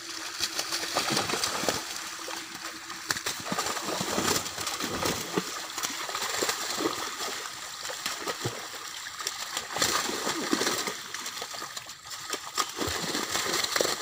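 Netted fish thrashing at the surface of shallow water while men wade and grab among them with their hands. The result is continuous, irregular splashing and sloshing.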